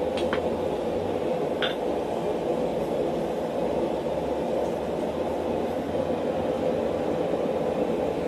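Steady rushing noise of a forge running while the stock heats, with a few light knocks in the first two seconds as a hammer is set down on the guillotine tool.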